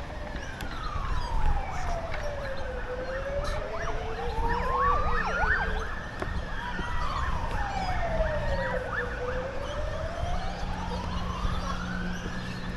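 Emergency vehicle siren in a slow wail, its pitch rising and falling smoothly about once every six seconds, with a quicker up-and-down warble briefly near the middle.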